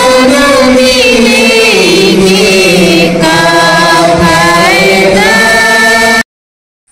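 Loud hymn singing led by a man's voice through a microphone and PA system, with long held notes that glide between pitches. It cuts off abruptly about six seconds in.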